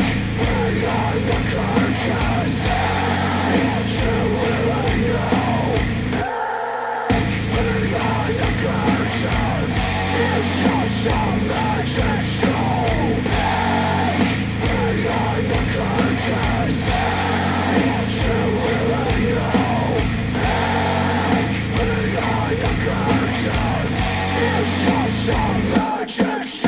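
Heavy rock music with distorted electric guitar and drums, played back through KEF LS50 Meta bookshelf speakers driven by a NAD C 338 integrated amplifier; the bass and drums drop out briefly about six seconds in.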